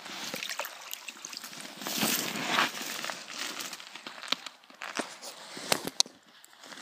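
Snow crunching and rustling as a freshly landed largemouth bass is handled on snow-covered ice, then a run of sharp short taps and clicks in the second half.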